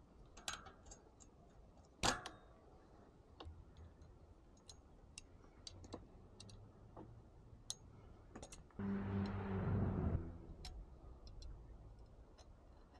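Faint, scattered clicks and taps of bike parts and tools being handled, with a louder knock about two seconds in and a short low buzz lasting about a second and a half near nine seconds.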